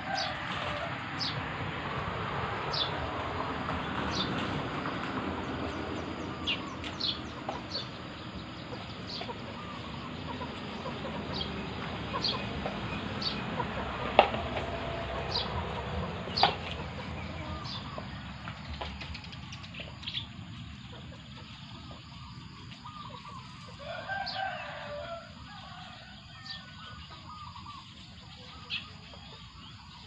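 Rural countryside ambience: a steady rushing noise that fades after about 18 seconds, with many short, high bird chirps throughout. Chickens cluck about 24 seconds in.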